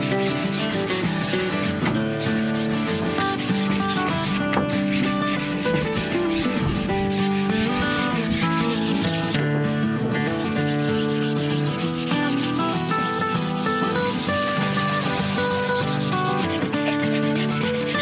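Scrap wood being sanded in quick repeated strokes, with two short pauses, about four and nine seconds in.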